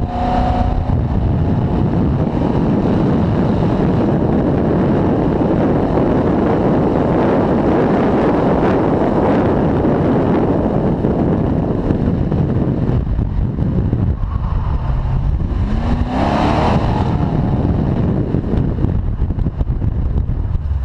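Chrysler Valiant's engine under hard acceleration, with wind buffeting on the microphone and tyre noise. The engine note climbs near the start, drops briefly about two-thirds through, then climbs again.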